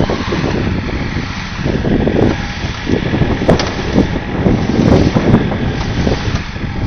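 A motor running under heavy wind rumble on the microphone, rising and falling in level throughout.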